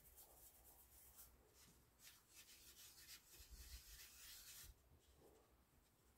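Faint, soft rubbing and scraping of hands kneading flour-dusted dough on a wooden board, in quick repeated strokes that grow busier in the middle and stop abruptly about three-quarters of the way through.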